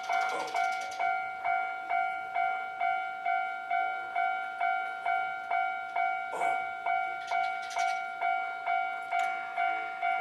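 Japanese railway level-crossing warning bell ringing steadily, about two dings a second, each ding fading before the next, signalling an approaching train.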